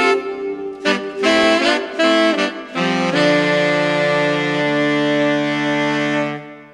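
Instrumental outro music: a few short notes, then a long held closing chord that fades out near the end.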